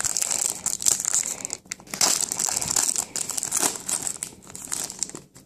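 A trading card pack wrapper being torn open and crinkled by hand, a dense crackle that stops suddenly near the end.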